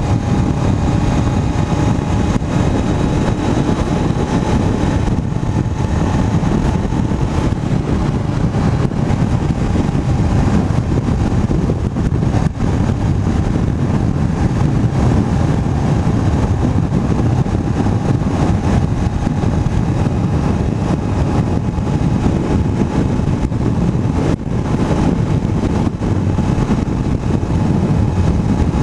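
Honda CBR500's parallel-twin engine running at a steady cruise, under loud wind rush on the microphone.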